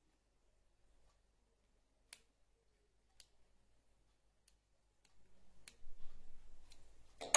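Small sharp clicks about once a second from a screwdriver and wires being worked while screw terminals are tightened. From about five seconds in they turn into rustling handling noise, with a louder cluster of clicks near the end.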